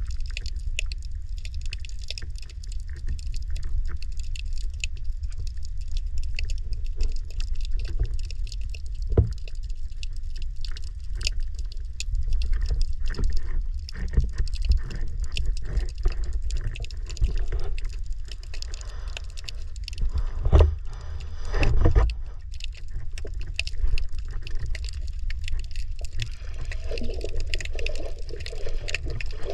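Underwater sound picked up by a GoPro in its waterproof housing: a steady low rumble of water with many small clicks and crackles, and two louder knocks about two-thirds of the way through.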